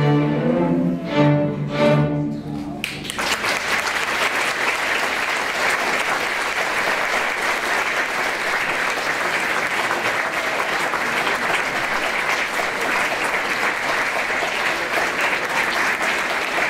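A middle-school string orchestra of violins, cellos and basses plays its final chords, which stop together about three seconds in. The audience then breaks into steady applause.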